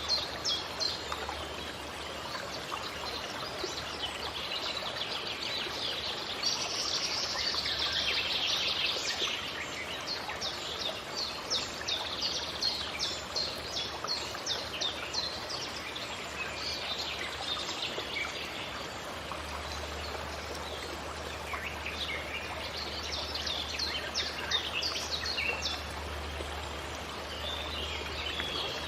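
Forest ambience: several birds chirping in quick runs of short high notes over a steady rushing background like a stream, with a low hum in the second half.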